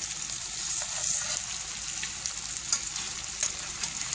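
Chicken breasts sizzling steadily in melted butter in a frying pan, with a few sharp clicks of metal utensils against the pan as a breast is turned over.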